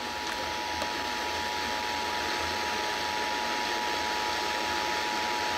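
Emergency Alert System attention signal: the steady two-tone alert sound (853 and 960 Hz together) received over the radio with a hiss of static, the signal that an emergency alert is about to be read.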